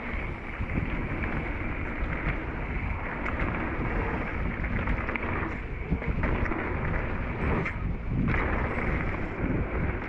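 Wind rushing over an action-camera microphone on a mountain bike riding down a dirt trail, with the rumble of the Rocky Mountain Thunderbolt's tyres and small rattles and knocks from the bike over the ground. The wind noise eases briefly twice, about five and a half and eight seconds in.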